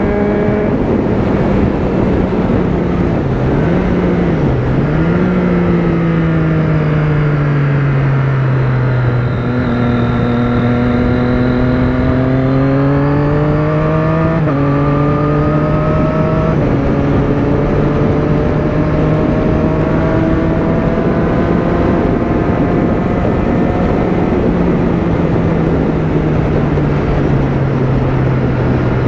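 Motorcycle engine running at light throttle, with steady wind rush on the microphone. The engine note dips briefly a few seconds in, sags and then climbs slowly, and jumps up in pitch about halfway through.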